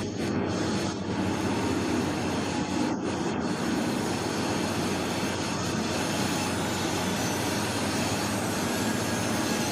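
Steady heavy mechanical rumble and rattle, like a large machine or vehicle running.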